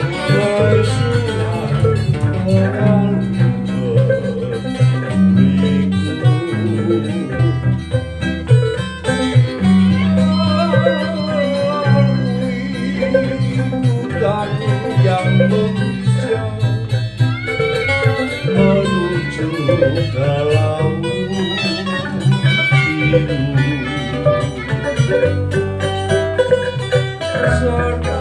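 Keroncong band playing live: small ukulele-like cak and cuk strumming, a finger-plucked keroncong cello and low bass notes underneath, and a man singing with vibrato through a microphone.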